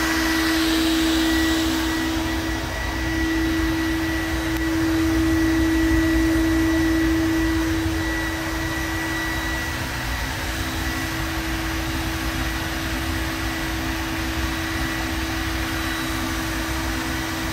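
Homemade waste-oil furnace running with its air blower on: a steady whir with a constant low hum, the blower forcing air into the oil fire in the burn pot.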